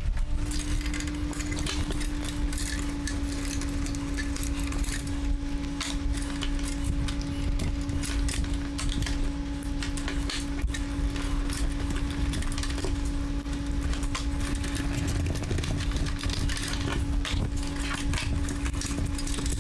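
Clicks, knocks and light clatter of parts being handled as an old desktop computer case is stripped, over a steady electrical hum.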